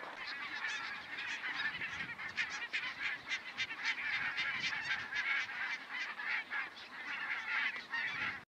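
A flock of barnacle geese calling: many short, overlapping calls in a dense chorus. The sound cuts off abruptly near the end.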